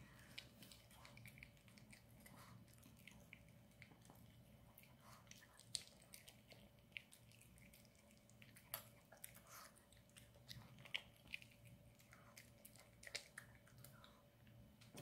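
Maltese dog eating soft cheese tteokbokki rice cakes: faint, irregular wet chewing and mouth smacks with small clicks, a few sharper ones spaced through.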